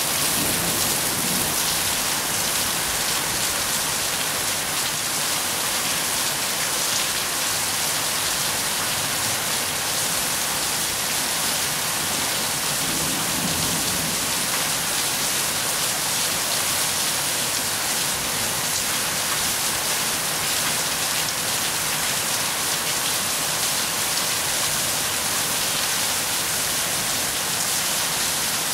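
Steady rain falling: an even, unbroken hiss of countless drops, brightest in the high range.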